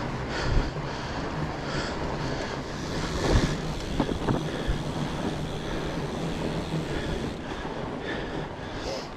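Fat bike riding along a forest trail: steady noise of the tyres on the ground mixed with wind on the microphone, with a couple of knocks a little over three and four seconds in.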